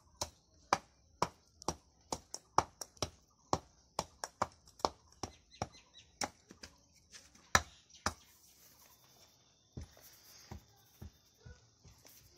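Fired clay bricks clinking and knocking against one another as they are set by hand into a brick bed: sharp knocks about two or three a second, thinning out after about eight seconds.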